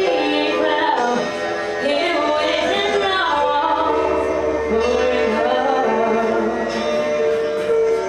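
A woman singing live into a handheld microphone over instrumental backing music. Her voice moves through gliding melodic lines in the first half, then holds longer notes.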